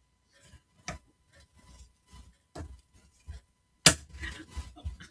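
Light clicks and taps of small 3D-printed plastic parts being handled and pressed into their slots on a model house, a handful of separate taps with the loudest near the end followed by a quick run of smaller clicks.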